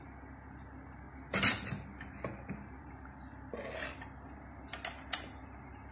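A metal ladle clicking and knocking lightly against a steel pot of batter as it is stirred, a handful of short knocks with the loudest about a second and a half in, over a steady faint hiss.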